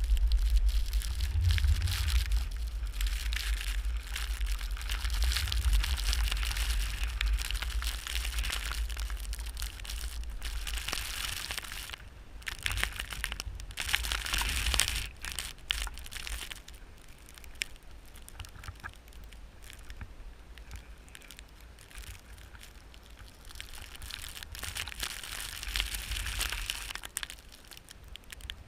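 Snow crunching and scraping, with wind buffeting the microphone, loudest in the first ten seconds and easing after that.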